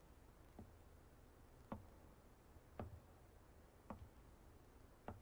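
Five faint, evenly spaced knocks about once a second over near silence.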